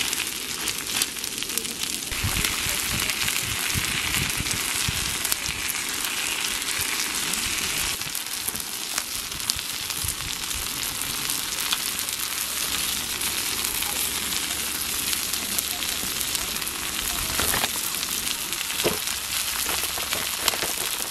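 Okonomiyaki frying in a hot iron pan: a steady sizzle with many small pops.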